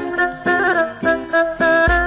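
Background music: a quick melody of short pitched notes, a few per second, with a low thump near the end.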